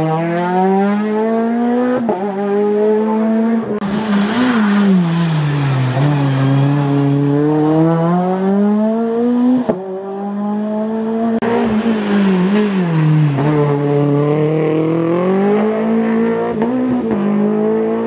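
Rally car engines pulling hard up a winding stage, the engine note climbing through each gear and dropping back at every shift, over and over.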